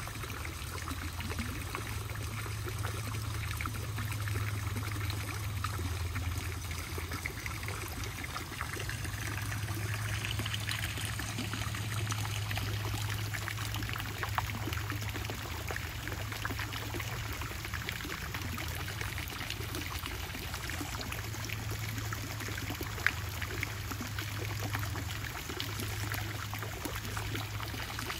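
Garden pond fountain and small waterfall splashing and trickling steadily into the pond, with a steady low hum underneath.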